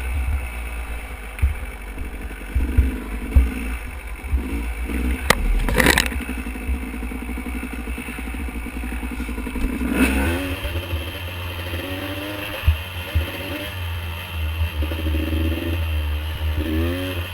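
Dirt bike engine running and revving up and down while riding a trail, with a few sharp knocks and clatters about five to six seconds in.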